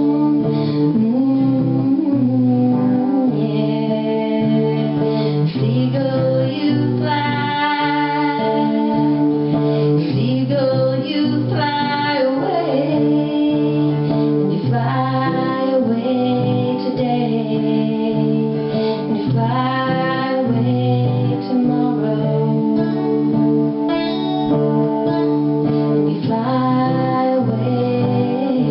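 A woman singing a rock ballad, accompanied by guitar.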